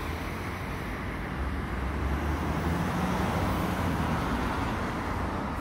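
Road traffic on a busy city street: cars passing with a steady tyre-and-engine noise and a low rumble that swells about a second and a half in as a vehicle goes by.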